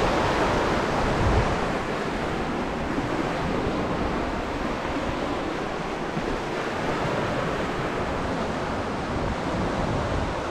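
Lake Ontario waves washing steadily onto the rocky shore, with wind rumbling on the microphone, strongest in the first second or two.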